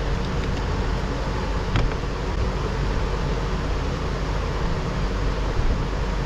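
Steady rushing background noise, with one light click about two seconds in.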